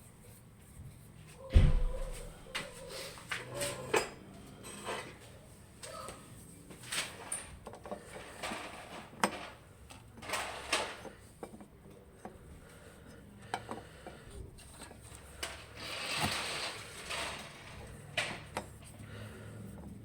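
Irregular clicks, knocks and rattles of hard parts and tools being handled, with one heavy thump about a second and a half in and a longer scraping rustle near the end.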